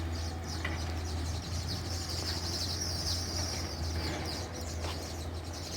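Many small weaver birds chattering together, a dense, high-pitched twittering that swells in the middle. A steady low hum runs underneath.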